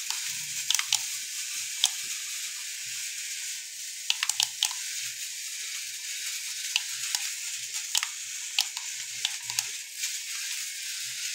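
Mini RC motorcycle running on a tile floor: a steady high hiss from its small electric motor and wheels, with scattered sharp clicks.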